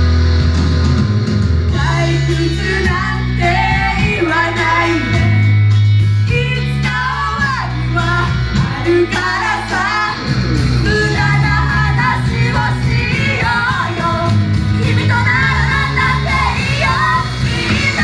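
Live performance of a rock-style pop song: singing over a loud backing with a heavy bass line and a driving beat. The vocals come in about two seconds in.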